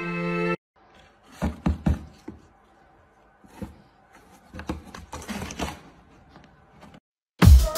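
A few soft thumps and scraping on a cardboard box, with rustling, as a cat's paw reaches out through a slot and grabs a paper banknote.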